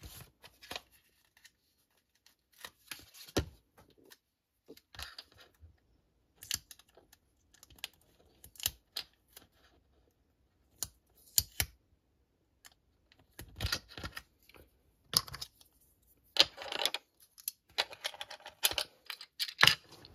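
Small plastic Playmobil pieces being handled and stickers peeled from their sheet and pressed on: irregular light clicks, taps and short crinkles, busier in the second half.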